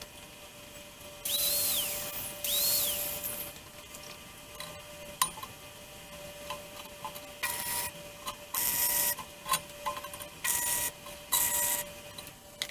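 Flux-core wire-feed welder striking short arcs: about seven separate bursts of crackling sizzle, each under a second long, the two near the start the longest, over a steady faint hum.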